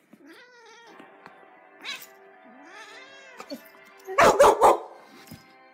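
A cat meows in the first part. About four seconds in a dog barks loudly about three times in quick succession. Music plays underneath.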